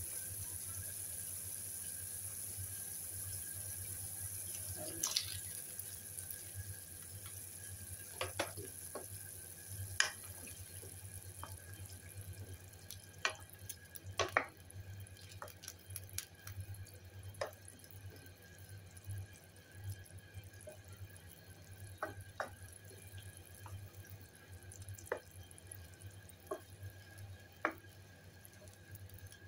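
A pan of tofu and bottle gourd soup boiling and bubbling, with a steady hiss that fades after about five seconds as the boil settles. Scattered small clicks and taps follow as a wooden spatula stirs the pan.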